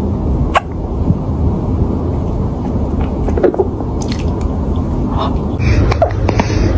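A cat hiccuping: several short, sharp hiccups at irregular intervals, a second or more apart, over a steady low rumble.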